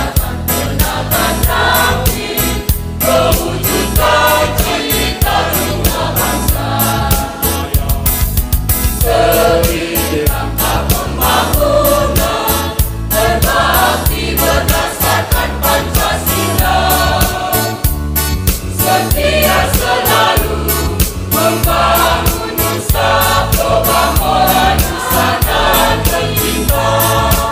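A large group of graduates singing the institute's march together like a choir, over an accompaniment with a steady beat.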